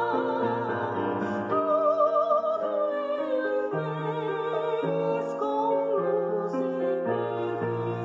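A woman singing a hymn with vibrato over sustained keyboard chords in an organ-like tone that change about once a second.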